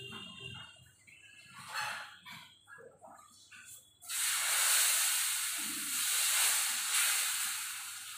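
Batter sizzling on a hot flat griddle (tawa), a loud hiss that starts suddenly about four seconds in and keeps going. Before it, light clinks of steel bowls and utensils.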